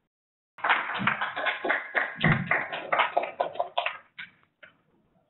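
Applause from a small audience, many hands clapping at once, starting about half a second in and thinning to a few last claps before it stops.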